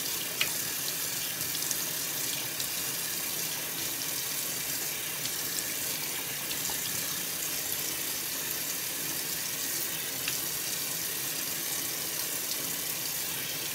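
Bathroom tap running steadily into a sink, with small splashes as hands scoop up warm water to rinse a face scrub off the face.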